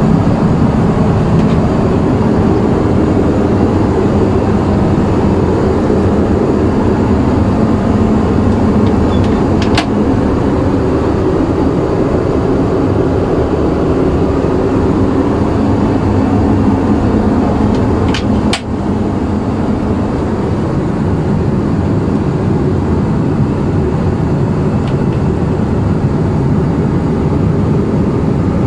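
Steady loud rumble and rush inside an Airbus A319 passenger cabin, from its jet engines and the airflow, with a few brief clicks about ten seconds in and twice near the twenty-second mark.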